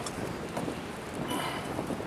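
Wind blowing across the microphone: a steady rushing noise with scattered crackles.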